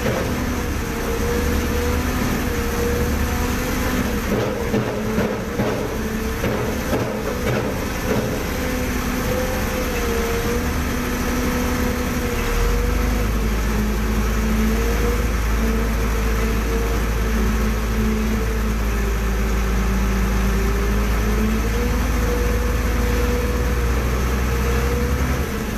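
A crane's engine and hydraulics running, heard from inside the operator's cab as the control levers are worked. A steady whine drifts up and down in pitch, and a deeper low hum sets in about halfway through.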